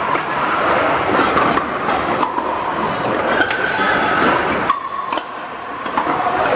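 Pickleball paddles striking the hard plastic ball, sharp pops a second or more apart, over the steady din of a busy indoor multi-court hall. The din drops briefly about five seconds in.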